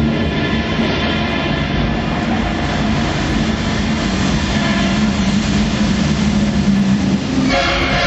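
Loud, steady rumbling sound effect from the stunt show's sound system, with a constant low drone. About seven seconds in it gives way to music.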